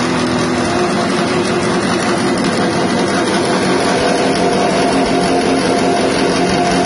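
6.5 HP petrol engine driving a grass chopper, running at a steady speed.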